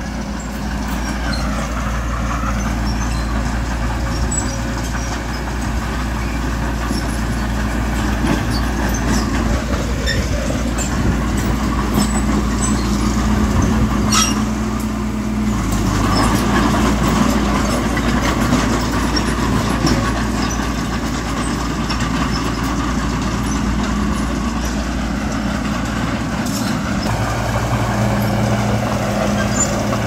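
Diesel engines of heavy earthmoving machinery (bulldozer and dump trucks) running steadily. The engine note shifts about halfway through, and there is a single sharp click shortly before that.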